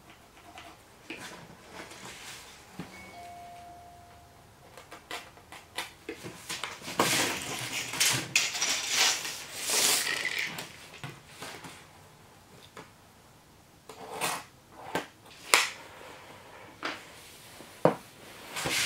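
Scratching, sliding and rattling of a pencil and a tape measure being worked over a strip of foam board insulation, loudest from about seven to eleven seconds, as the tape blade is pulled back into its case. A short squeak about three seconds in, then scattered clicks and knocks as the tools are handled and set down.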